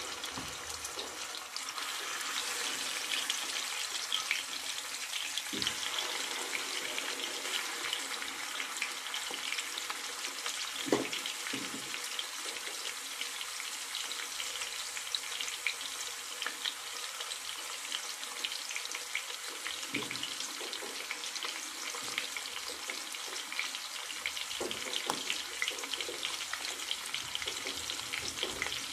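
Masala-coated chicken drumsticks shallow-frying in oil in a nonstick wok: a steady crackling sizzle, with a few soft knocks scattered through it.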